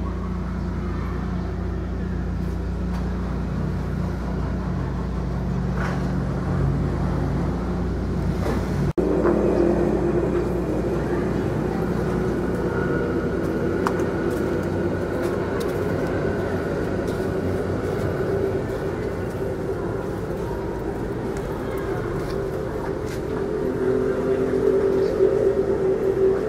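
A motor vehicle engine running steadily. The sound changes abruptly about nine seconds in, where the recording cuts.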